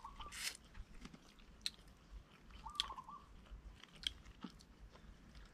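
Quiet chewing and mouth sounds of people eating steamed fish wrapped in rice paper, with a few soft clicks. A brief warbling call is heard twice, at the start and about three seconds in.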